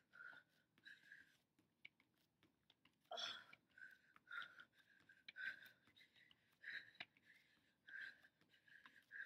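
Faint hard breathing from exertion, a sharp breath roughly every second, with one louder, fuller breath about three seconds in.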